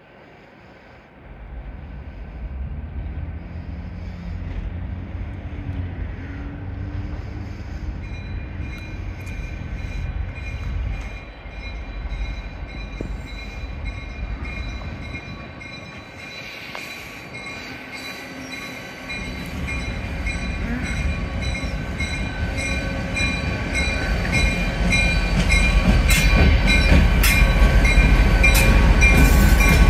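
Norfolk Southern diesel freight locomotive approaching and drawing alongside, its engine rumble growing louder, with faint steady high tones from about eight seconds in. Sharp clicks of the wheels come near the end as it passes close.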